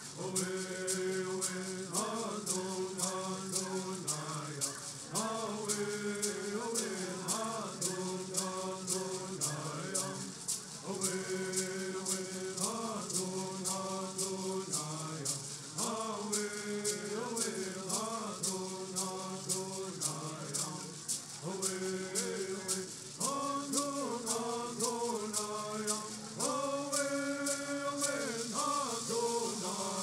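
Southern California bird songs: a group of men singing in unison in repeated phrases over gourd rattles shaken in a steady beat, about two shakes a second.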